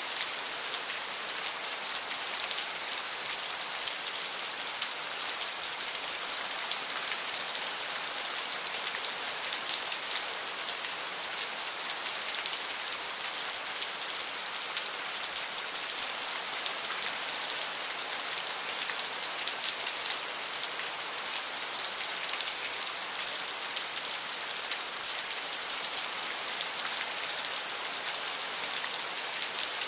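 Steady rain: a dense, even hiss of many small drops that does not change in intensity.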